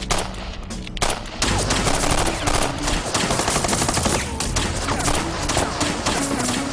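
Rapid automatic gunfire in a sustained exchange of fire, many shots overlapping, growing denser from about a second in.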